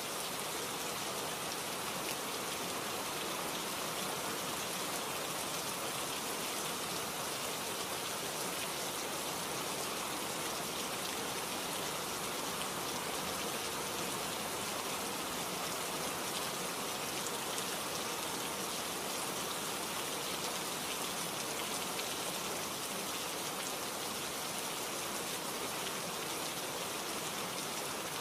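Steady rain, an even hiss of falling rain that holds at one level throughout.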